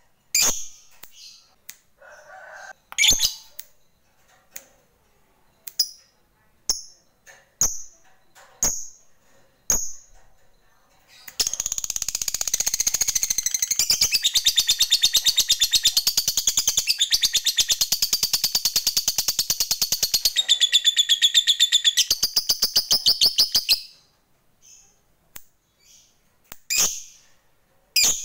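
Lovebird giving scattered sharp, high chirps, then about eleven seconds in breaking into a long, very fast chattering trill, the 'ngekek panjang' that fanciers prize, which runs for some twelve seconds before it drops back to single chirps.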